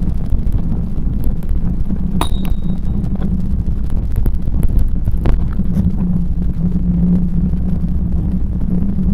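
Steady low rumble of wind buffeting the microphone and bicycle tyres running on a paved path, with a few scattered clicks and rattles, one with a brief high squeak about two seconds in.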